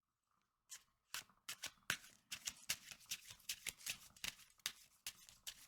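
A deck of tarot cards being shuffled by hand: a quick, irregular run of card slaps and snaps starting about a second in, as the deck is worked until a chunk of cards falls out.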